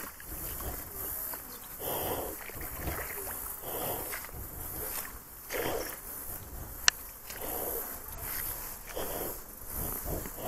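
Kayak paddle strokes swishing through shallow, reedy water, about one every two seconds, with a single sharp click about seven seconds in.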